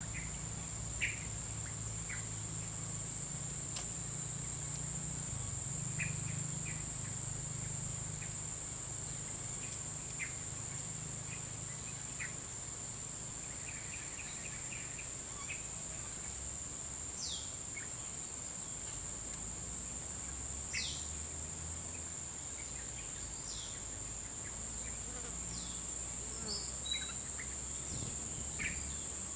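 Tropical bush ambience: insects hold one steady high-pitched drone throughout, under short scattered bird calls, some of them quick falling whistles. A faint low rumble of distant traffic sits beneath.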